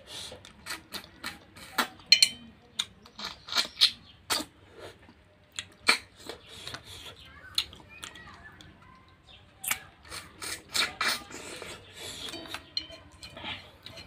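Close-up eating sounds of a mouthful of rice and snail curry being chewed: wet lip smacks and sharp clicks of the mouth, coming irregularly and several times a second in places.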